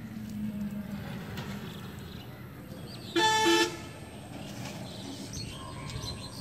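A vehicle horn toots once, briefly, a little over three seconds in, over a low steady background rumble.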